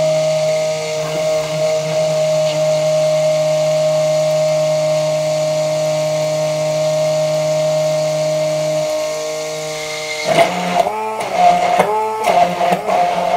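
Stick blender running steadily with its head held at the bottom of a beaker, emulsifying garlic aioli. About ten seconds in, the motor's pitch starts to waver and the sound turns uneven and louder as the blender is worked up through the thickening mixture.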